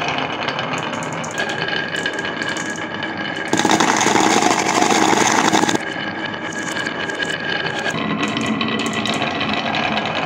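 Glass marbles rolling down a wooden zigzag marble-run slope, a dense rattle of clicks as they knock against each other and the carved wooden walls. For about two seconds in the middle it turns suddenly louder and harsher, then drops back.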